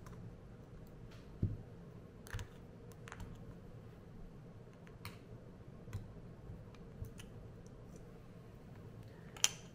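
Sparse light clicks and small knocks of a screwdriver and loose grip screws as the wooden grips are unscrewed from a Springfield Armory 1911 frame, with a dull knock about one and a half seconds in and a sharper metal click near the end.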